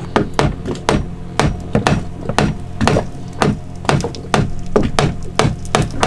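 Light hammer taps, about two to three a second, working a boat's deck hatch frame loose by breaking the old sealant that bonds it to the deck.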